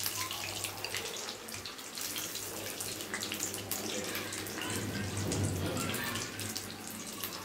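Breaded pomfret pieces sizzling and crackling in hot oil in an iron kadai, turned with steel tongs. There is a steady low hum underneath.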